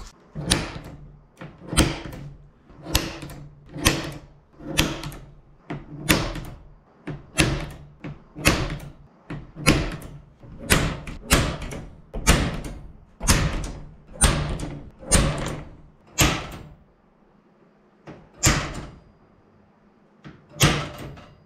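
Center punch snapping into an aluminium spar cap strip, marking rivet hole locations for pilot drilling. Sharp metallic clicks at an uneven pace of one to two a second, about two dozen in all, with a pause near the end before a last few.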